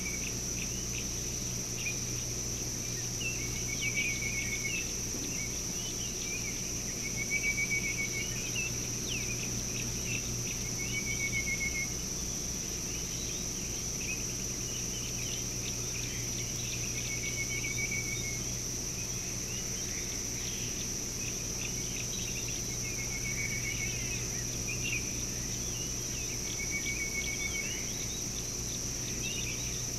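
Early-morning bush ambience: a steady high-pitched insect drone, with a short trilled call repeating every few seconds and scattered bird chirps. A low steady hum runs underneath.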